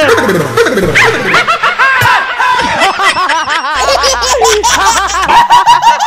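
Several people laughing at once, many voices overlapping in quick ha-ha pulses.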